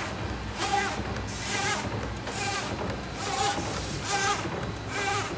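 Energy ball rolling machine running at full speed: a steady low hum with a high, wavering squeak repeating a little faster than once a second, once per machine cycle.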